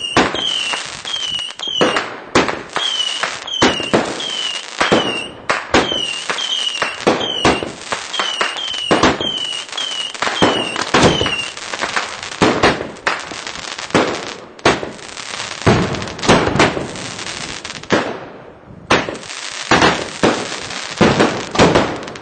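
Pyragric consumer fireworks firing in rapid succession, with repeated sharp bangs of shots and bursts. For roughly the first half, each shot carries a short falling whistle, about three every two seconds. After that the bangs and crackle go on without whistles.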